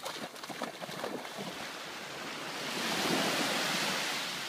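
A beagle splashing as it bounds through shallow sea water. Then a wave washes in on the sand, swelling to a peak about three seconds in and fading.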